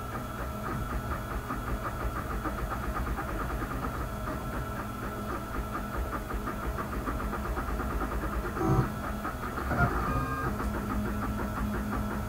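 Home-built wooden-frame 3D printer running a print: its stepper motors whine in a pulsing tone as the print head traces the outline, over a steady low hum. The pitch changes briefly with a couple of louder moves about two-thirds of the way through.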